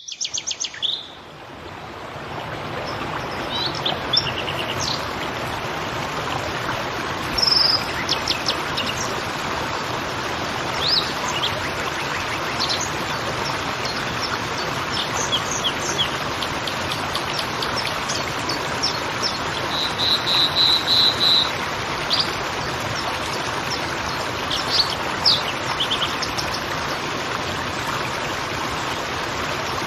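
A creek babbling steadily, rising over the first couple of seconds, with small birds chirping and trilling over it; about twenty seconds in, one bird gives a quick run of repeated notes.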